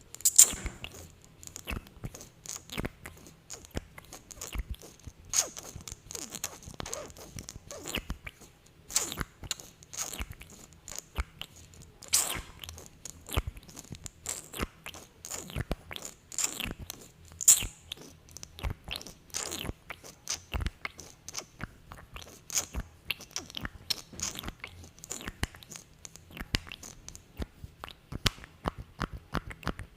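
Close-miked sticky, glossy lip sounds: irregular wet smacks and clicks of lips coated in lip gloss, several a second and without a steady rhythm.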